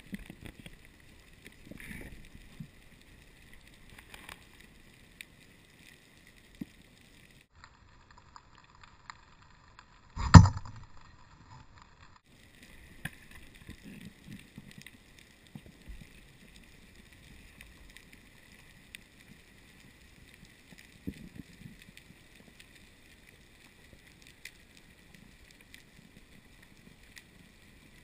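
Underwater ambience with a faint steady hiss and scattered small clicks and knocks, then one loud sharp knock about ten seconds in: the three-prong pole spear being shot at a small reef fish.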